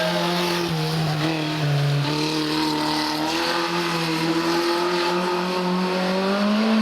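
Historic rally car engine running hard on a special stage, its pitch stepping with gear changes in the first two seconds, then climbing steadily as the car accelerates.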